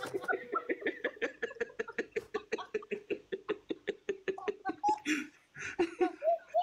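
A woman laughing hard in a long run of quick, evenly spaced ha-ha pulses. It breaks off about five seconds in, then a few shorter laughs follow near the end.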